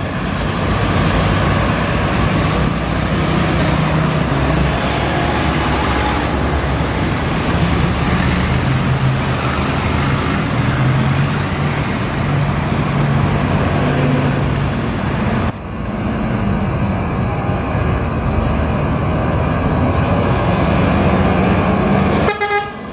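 Heavy diesel bus engine running on the road, its pitch rising and falling with speed, over steady road and wind noise.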